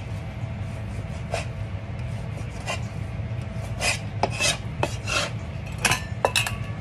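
Chinese cleaver cutting beef into thin strips on a plastic cutting board: irregular knife strokes and scrapes, coming quickest about four seconds in and again near the end, when the blade scrapes the meat up off the board. A steady low hum runs underneath.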